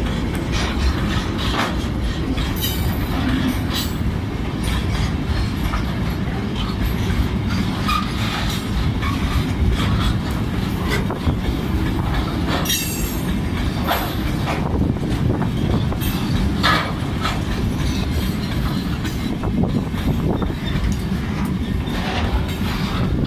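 Freight train hopper wagons rolling past close by: a steady low rumble with the clatter of wheels over the rails, and a short high squeal about three seconds in and again about halfway through.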